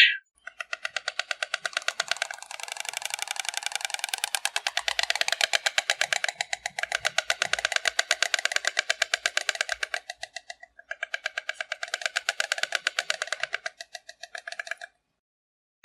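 Stork clattering its bill: rapid wooden rattling, a fast train of sharp clicks in several long bouts with brief pauses between them.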